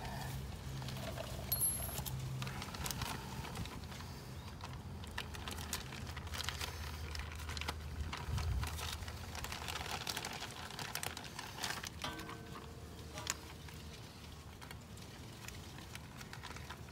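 Scattered light clicks and rustles of hands handling a rag and small greased bearing parts. Under them runs a low steady hum that stops about eight and a half seconds in.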